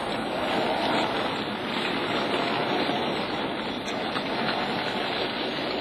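Model trains running on a model railway: a steady whirring and rolling noise from the locomotive's small electric motor and the wagons' wheels on the track.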